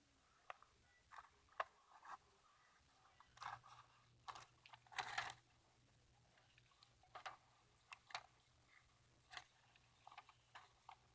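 Scissors cutting paper: faint, irregular snips and crinkles of the paper, with a brief longer rustle about five seconds in.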